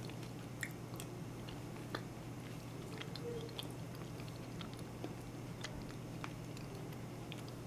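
Quiet chewing of thick corn-and-bean porridge, with many faint scattered clicks over a low steady hum.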